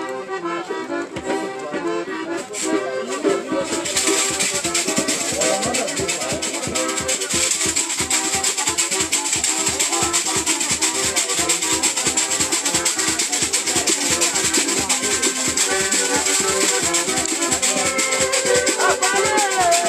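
Accordion playing a repeated melody, joined about three seconds in by a rattle shaken in a fast, steady rhythm, with voices singing near the end.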